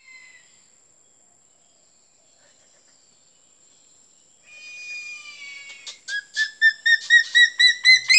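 Eagle calling with high whistles. About halfway there is one long whistled note, falling slightly; then comes a run of short, loud yelping whistles, about four a second, climbing a little in pitch and ending in a longer note.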